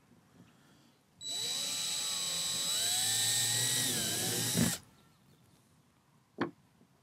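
Power drill running for about three and a half seconds, its pitch rising a little partway through, as it bores a pilot hole into the kayak's plastic for a mount plate's screws. A single sharp click follows near the end.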